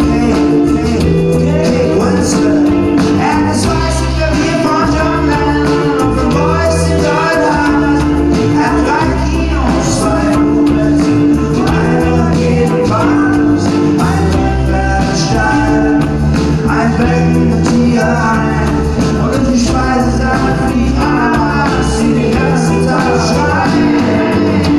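A band playing a rock-pop song with a singer, over electric guitar, keyboard and drums with a steady beat.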